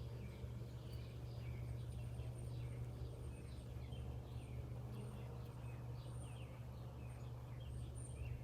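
Small birds chirping: many short, quick falling calls overlapping throughout, with a few fainter high-pitched calls, over a steady low rumble.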